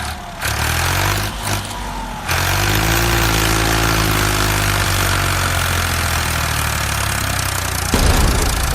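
A small engine running steadily, with a low, even engine tone. It becomes louder about two seconds in and changes again near the end.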